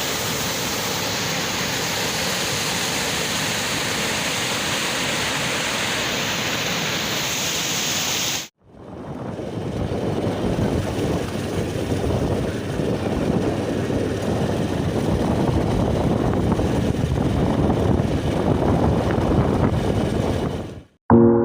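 Waterfall water rushing in a steady, dense noise. It cuts off about eight seconds in and resumes as a heavier, lower and more uneven rush.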